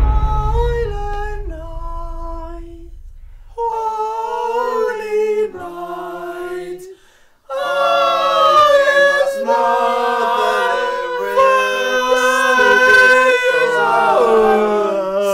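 A group of men singing a cappella in choir style. A single voice starts, a lower voice joins about three and a half seconds in, and after a short break near seven seconds the full group sings together in several-part harmony.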